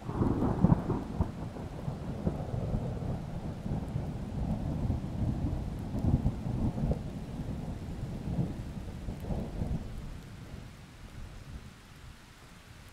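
Thunder over steady rain: a peal breaks suddenly at the start and rolls on as a long low rumble, swelling and ebbing, before dying away after about ten seconds.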